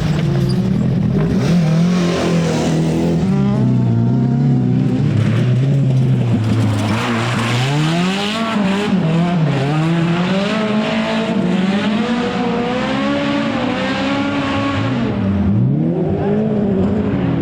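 Rally car engine revving hard on a stage, its pitch climbing and dropping again and again as the car accelerates, changes gear and lifts off for corners, with a deep drop in revs near the end.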